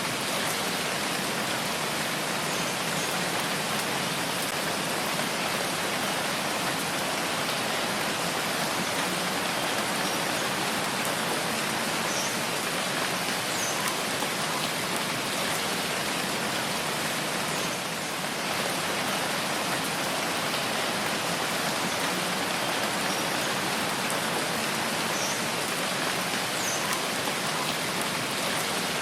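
Steady rainfall, an even hiss of rain pattering on surfaces with a few faint individual drop ticks.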